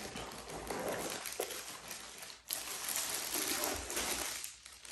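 Clear plastic packaging crinkling and rustling as it is handled and pulled open, in two stretches with a short pause about halfway through.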